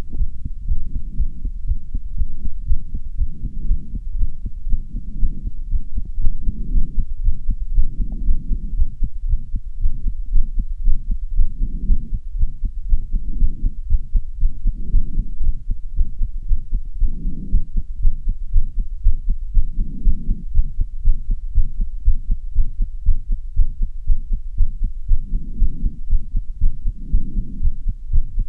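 A person's heartbeat picked up close to the chest, thumping in a steady, regular rhythm, raised by hard exercise. Heavy breathing swells in and out every couple of seconds over the beats.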